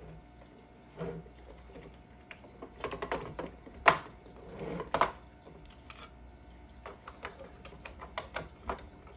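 Irregular light clicks and taps of hands working the plastic and metal body of a toy RC dump truck while its battery is fitted, with the sharpest click about four seconds in.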